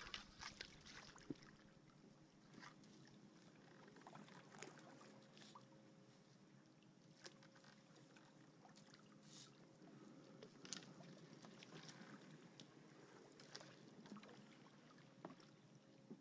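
Kayak paddled quietly through shallow flooded brush: faint paddle dips and water drips with scattered small clicks and ticks, all very quiet.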